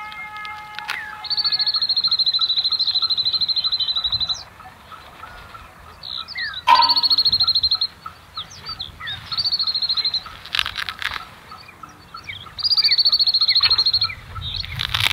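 Birds calling: a loud, high, rapid trill held for one to three seconds, three times, over scattered short chirps.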